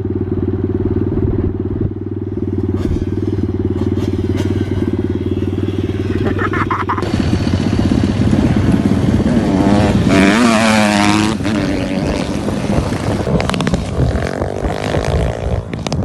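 Pit bike engine running at a steady idle, then revved up and back down about ten seconds in.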